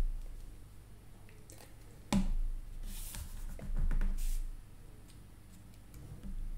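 Handling of small cardstock pieces on a cutting mat: a sharp tap about two seconds in, then a couple of brief papery rustles as pieces are pressed into place.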